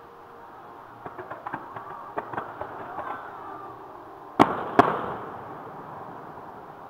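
Distant fireworks: a scatter of small crackling pops, then two loud bangs about half a second apart a little past the middle, each trailing off in an echo.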